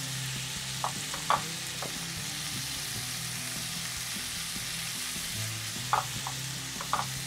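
Chicken tikka pieces sizzling steadily in a hot cast-iron grill pan, a constant frying hiss. A few light taps come about a second in and again near the end as a silicone basting brush dabs masala onto the chicken.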